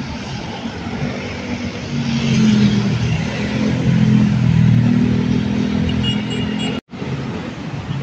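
Busy street traffic: the engines of a box truck, vans and motorcycles running and pulling past close by, loudest in the middle. The sound breaks off for a moment near the end.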